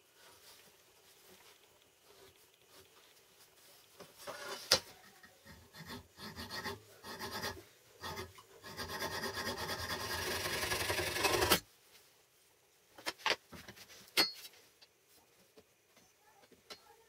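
Hand file rasping on an aluminium flat bar clamped in a bench vise: a few scattered strokes, then about three seconds of quick, continuous filing that grows louder and stops suddenly. A few light knocks follow.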